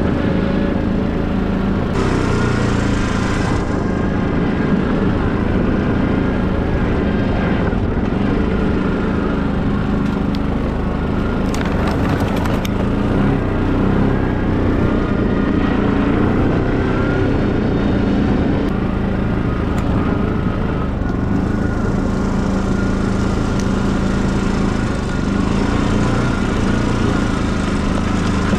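Quad bike (ATV) engine running steadily while riding.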